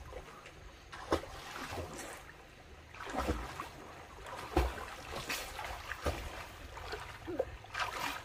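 Floodwater splashing and sloshing as a person moves through it, in irregular splashes about a second apart over a steady trickle of running water.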